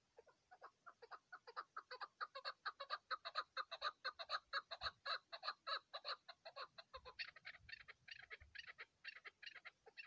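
Chukar partridge calling: a fast run of short repeated chuck notes that builds up to a peak in the middle. About seven seconds in the notes shift higher and thinner, and they stop near the end.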